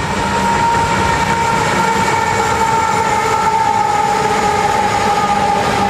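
BNSF diesel freight locomotives passing close by, engines running loud, with a steady high-pitched tone over the rumble that sinks slightly in pitch as they go by.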